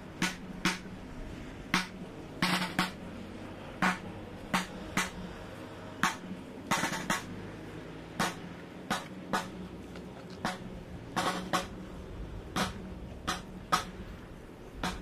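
Procession drum beating a slow, uneven cadence of sharp strokes, about one to two a second, some coming in quick pairs.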